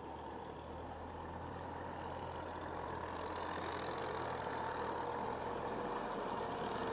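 An engine running steadily with a low hum, growing gradually louder.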